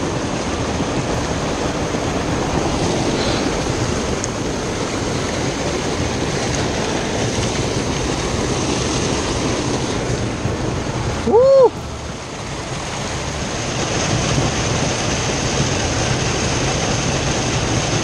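River rapids rushing steadily, a constant whitewater noise. About eleven seconds in, a brief loud tone rises and falls.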